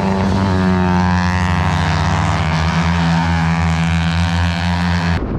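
Racing motorcycle engine at high revs as a bike rides past on the circuit, one loud steady note that cuts off suddenly near the end.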